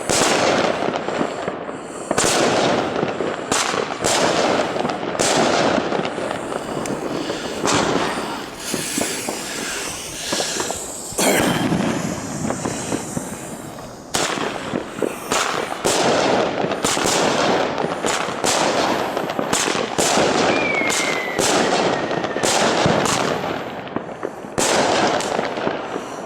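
Small Albert Funke 7-shot F2 firework cakes firing: a long series of sharp bangs and pops as the shots launch and burst, with a stretch of dense crackling about eight to eleven seconds in.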